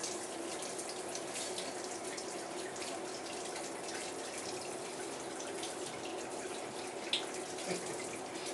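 Shower spray running into a bathtub: a steady hiss of falling water with scattered small splashes and drips, and one slightly louder splash about seven seconds in.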